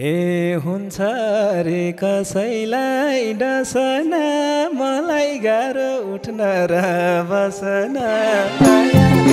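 A man singing a dohori verse solo into a microphone, in long sliding, ornamented phrases with little accompaniment. Near the end the band, with its drums, comes back in.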